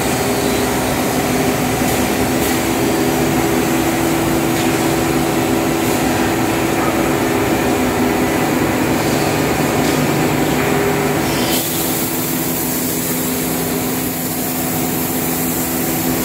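Heian SR-331P CNC router running, with a loud, steady machine noise and a constant hum from its motors. The sound changes abruptly about eleven and a half seconds in.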